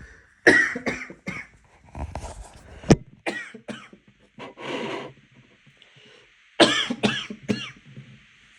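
A person coughing hard in a fit after choking on water, in runs of several harsh coughs in quick succession, with a longer rasping breath near the middle.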